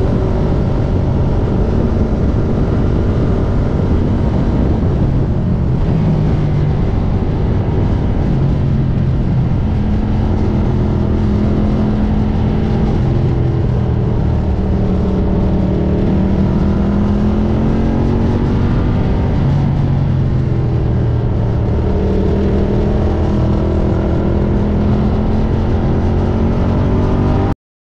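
Ducati Diavel's V-twin engine on the move, its pitch climbing and dropping several times with throttle and gear changes over a dense, steady rush of noise. The sound cuts off abruptly near the end.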